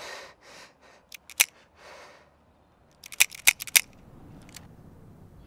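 A few heavy breaths, then a revolver clicking as it is dry-fired, the hammer falling without a shot. There are two clicks about a second in, a quick run of about five clicks around three seconds in, and one last click near four and a half seconds.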